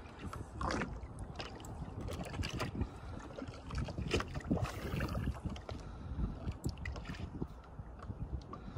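Wind rumbling on the microphone and water slapping against the hull of a bass boat in choppy water, with a few short knocks and splashes.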